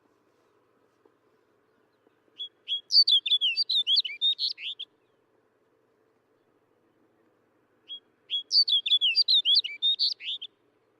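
Snow bunting singing: two short song phrases of rapid, varied, sliding notes, each about two and a half seconds long, the first starting about two seconds in and the second about eight seconds in.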